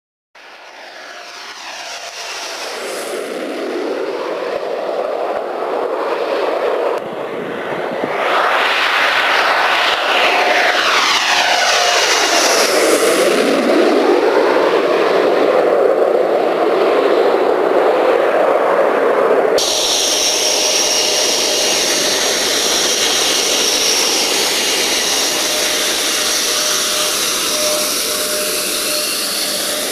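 RAF Tornado GR4 jets, with twin RB199 turbofan engines, going by twice. Each time the jet noise sweeps down in pitch as the aircraft passes. About two-thirds through, the sound cuts abruptly to a steady, high-pitched whine of the engines running close by on the ground.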